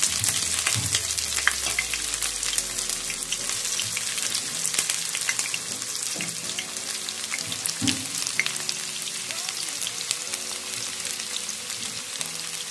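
Freshly added sliced onions sizzling and crackling in hot oil in a steel kadhai, with many small pops. The sizzle eases gradually as the onions settle in the oil.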